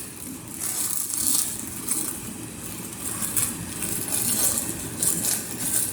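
Plastic packaging crinkling and rustling in irregular bursts as a bathing suit is handled and pulled out of its bag.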